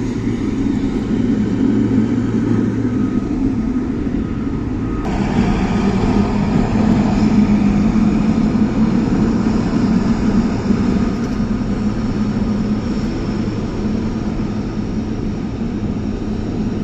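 Boeing 777's jet engines running at taxi power: a loud, steady rumble that turns suddenly hissier about five seconds in.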